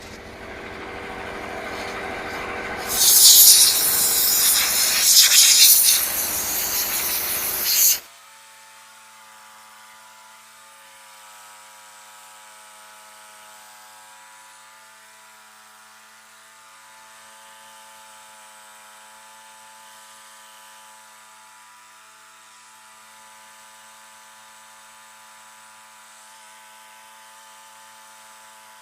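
Bandsaw sawmill running, its engine building up and then the blade cutting loudly through a log with a hissing sound; it cuts off abruptly about eight seconds in. A faint steady drone of several held tones follows.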